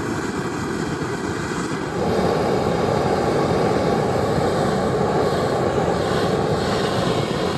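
Handheld gas torch flame burning with a steady rushing hiss, turned up or brought closer about two seconds in, as it heats a piece of titanium to bring out heat colours.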